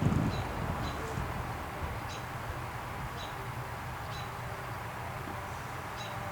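Vintage Air King box fan coasting down after being switched off from high. The rush of air has died away, leaving a quiet, steady low hum from the slowing blade and motor, with faint short high chirps every second or so.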